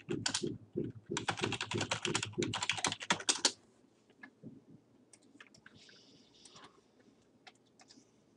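Fast typing on a computer keyboard for about three and a half seconds, then a few scattered single clicks.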